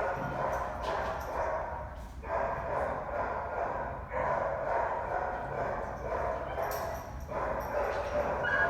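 Dogs barking and yipping in a steady din, with brief lulls about two seconds in and again about seven seconds in.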